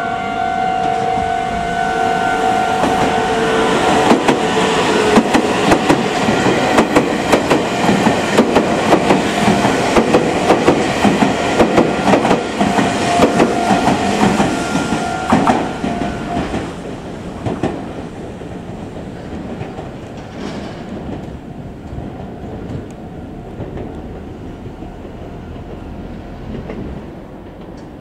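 Meitetsu 2200 series electric train passing through a station, its wheels clacking in a quick rhythm over rail joints. It is loudest for about twelve seconds with steady high tones underneath, then fades as the train moves away.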